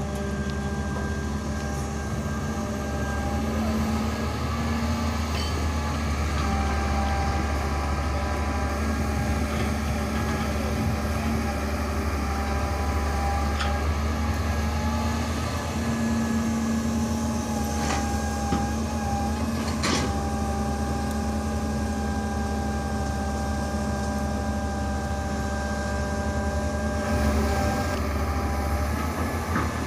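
Hitachi UH07 long-arm hydraulic excavator's diesel engine running steadily under load while it digs and swings soil, with a couple of sharp metallic clanks past the middle.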